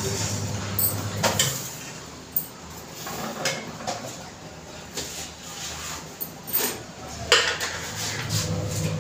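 Scattered clinks and knocks of kitchen utensils and containers, about one every second or so, the loudest near the end, over a low hum that stops about a second and a half in and returns near the end.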